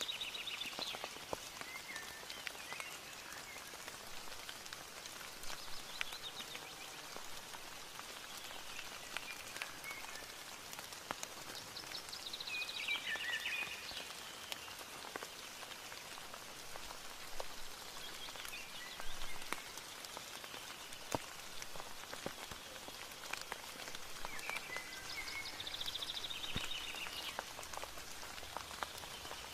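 Steady rain with individual drops ticking, and a songbird singing a short trilled phrase that falls in pitch. The phrase comes three times, about 13 seconds apart, with softer chirps between.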